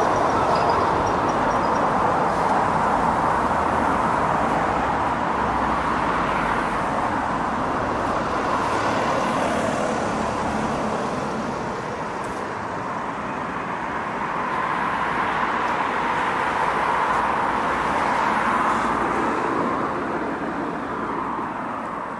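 Steady road traffic noise with a haze of tyre and engine noise from passing vehicles. It swells a few times as vehicles go by and eases off near the end.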